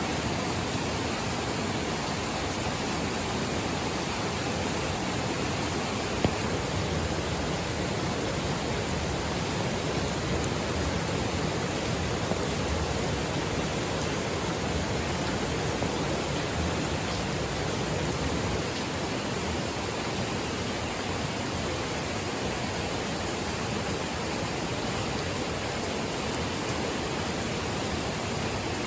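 Steady rushing water, rain or a flowing river, an even hiss with no change in level. A single brief click about six seconds in.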